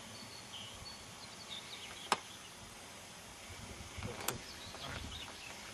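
Quiet outdoor ambience with faint, short high chirps. There is one sharp click about two seconds in and a softer knock about four seconds in.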